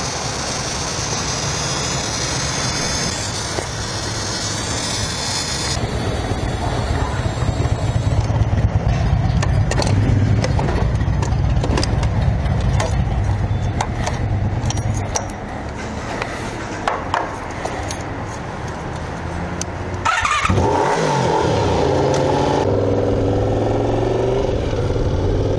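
Honda VFR motorcycle's V4 engine running, with scattered clicks and clatter in the middle. About twenty seconds in the sound changes suddenly and the engine revs with rising pitch.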